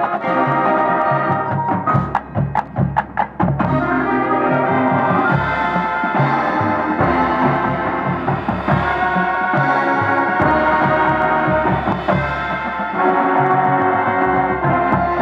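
High school marching band playing: brass chords held over percussion, with a quick run of sharp, evenly spaced percussion hits about two seconds in.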